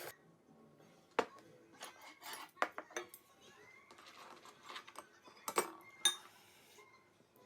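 Dishes and eating utensils clinking and knocking: a string of separate sharp clinks, the loudest about a second in and again around five and a half and six seconds.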